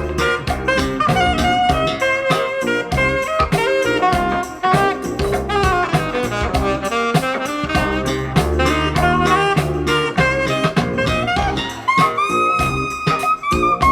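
Smooth jazz played from a vinyl record by a turntable with an Ortofon A90 cartridge, heard through hi-fi loudspeakers: saxophone over drum kit and bass, with a long held saxophone note near the end.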